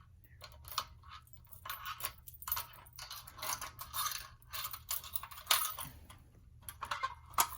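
Small metallic clicks, scrapes and rattles, irregular and spread throughout, from a metal fire alarm pull station and its key being handled while its lock is worked on.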